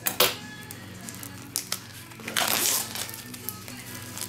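Plastic shrink-wrap crinkling as it is cut open and peeled off a DVD box set, in short crackles with a louder rustle about two and a half seconds in.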